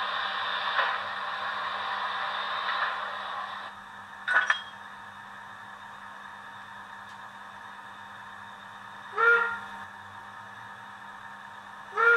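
Sound decoder of a Fleischmann H0 model of a DB BR 003 steam locomotive, playing standstill sounds: a steady steam hiss that cuts off after about three and a half seconds, then three short hooting whistle toots, the last right at the end.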